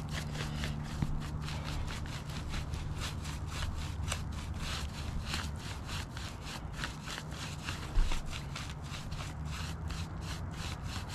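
A hand brush sweeping grit and debris off asphalt roof shingles in quick, even, repeated strokes, about three a second, with a brief thump about eight seconds in.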